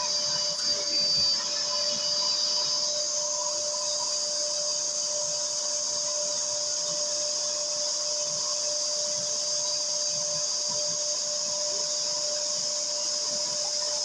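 Wet vacuum cleaner running steadily, drawing water and foam up through its clear upholstery nozzle as it is pulled across a fabric sofa cushion: a steady motor whine over a strong hiss of rushing air.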